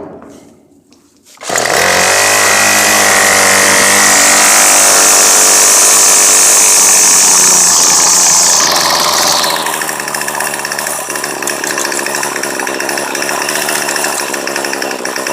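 Troy-Bilt TB22 two-cycle string trimmer engine starting about a second and a half in, running fast, then dropping to a steady, lower idle about nine seconds in. With the carburettor's low and high screws freshly adjusted, it keeps running at idle without bogging down.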